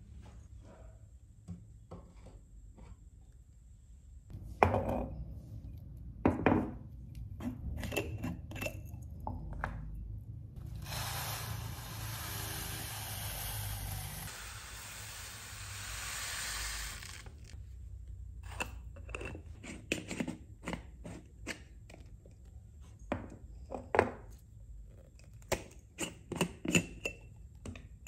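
Glass jars and their lids knocked, clinked and set down on a wooden countertop. For about six seconds midway comes a steady hiss of a dry granular ingredient pouring into a glass jar.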